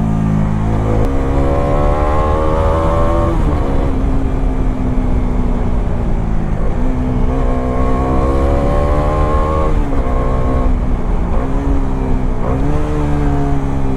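Bajaj Dominar 400's single-cylinder engine pulling through the gears: the revs climb twice, each time dropping sharply at an upshift, with a few shorter dips near the end, over low wind rumble on the microphone.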